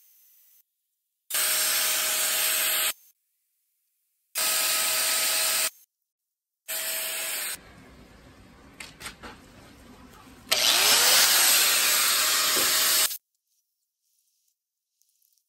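Electric angle grinder cutting into a car bumper, in four bursts of one to three seconds, each with a steady motor whine under the cutting noise and ending abruptly.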